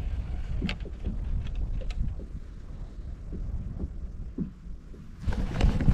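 Wind rumbling on the microphone, with scattered small knocks and clicks in the first half and a louder rush of noise about five seconds in.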